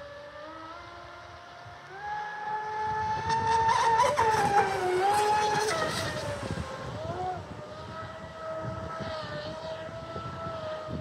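Brushless electric motor of an RC speedboat (TP4090 730kv on a ZTW 300A speed controller) whining at speed. The whine jumps up in pitch and grows louder about two seconds in, then drops back in pitch around six to seven seconds and holds steady.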